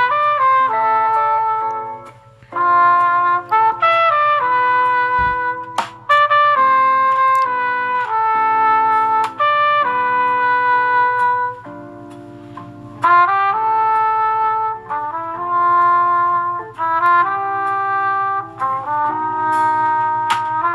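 Samsung Galaxy S21 ringtone playing: a brass-toned melody of held notes in short phrases, with brief gaps between them.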